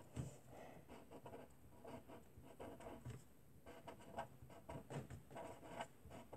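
Faint scratching of a pen writing on paper: a run of short, irregular strokes.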